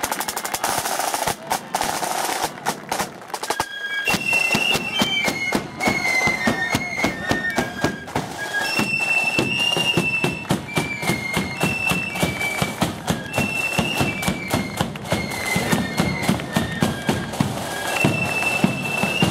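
Marching flute band: snare drums and bass drum at first, then from about four seconds in a high flute melody joins over the beat of the drums.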